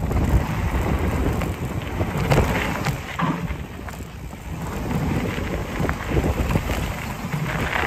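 Wind buffeting the microphone and tyres rumbling over a dirt trail as a mountain bike descends at speed, with scattered clicks and rattles from the bike over bumps.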